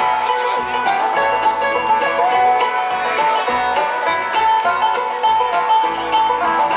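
A bluegrass band playing live: quick picked banjo notes over acoustic guitar, with a fiddle carrying a sustained melody line.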